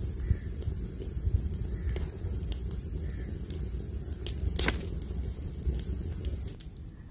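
Wood fire of thin sticks burning in a mud cooking stove, crackling with scattered sharp pops over a steady low rumble; the loudest pop comes about halfway through.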